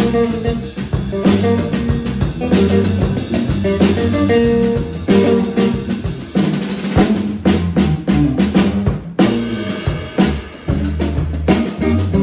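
Live band playing a funk groove on electric bass, drum kit and guitar, with busy snare and rimshot work on the drums. A dense run of drum hits comes from about seven to nine seconds in, then breaks off for a moment.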